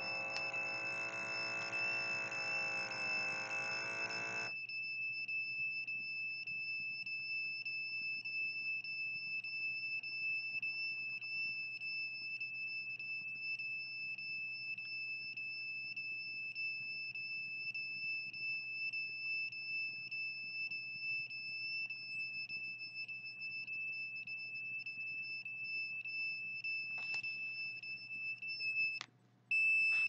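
Continuous high-pitched electronic alarm tone from a small handheld detector held against the chest, steady in pitch with faint regular ticks on it; it cuts off shortly before the end, with a brief blip after. A lower hum underneath stops abruptly about four and a half seconds in.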